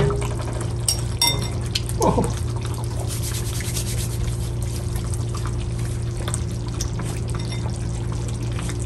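Steady watery hiss with faint crackles of lamb curry simmering in a pan over a gas grill's side burner, with a low hum underneath. A short falling vocal exclamation comes about two seconds in.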